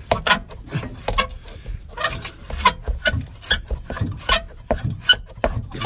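Irregular knocks and clanks, roughly two or three a second, from the rusted rear exhaust section being worked and knocked loose by hand.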